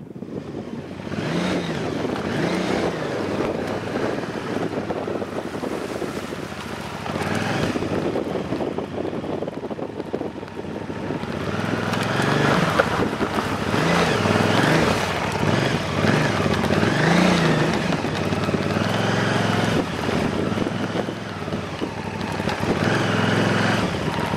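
Motorcycle engine running under way, its revs rising and falling again and again as it is ridden over rough ground. Wind buffets the microphone throughout.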